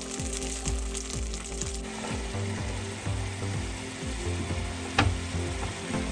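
Chicken and Thai red curry paste sizzling as they fry in oil in a frying pan. A single sharp knock about five seconds in.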